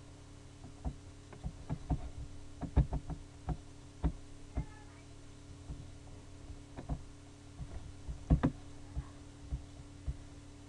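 Irregular clicks and light knocks of a computer mouse as an on-screen image is zoomed and dragged. They come over a steady low electrical hum, with the sharpest clicks about three seconds in and again a little past eight seconds.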